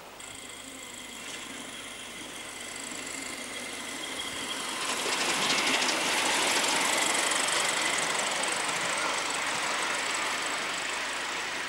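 Miniature live-steam passenger train running past close by on its track, with wheel and rail noise. It gets clearly louder about five seconds in as the locomotive draws level.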